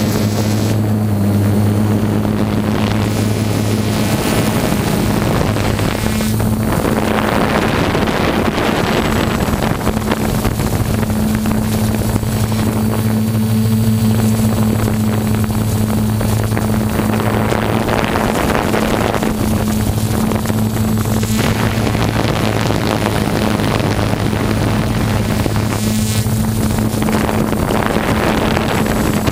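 Vintage snowmobile engine idling steadily with a low, even hum. A rushing noise swells and fades over it several times.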